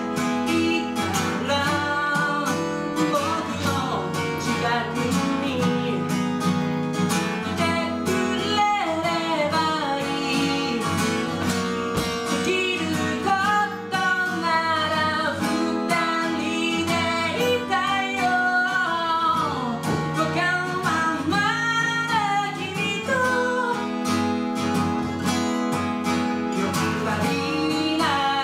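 A man singing while accompanying himself on an acoustic guitar, a solo live performance.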